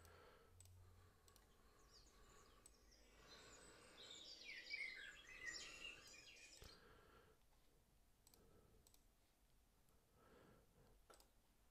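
Faint recorded birdsong, quick chirps and trills, loudest for a few seconds in the middle, played from an ambient-noise website's bird track. There are a few soft mouse clicks.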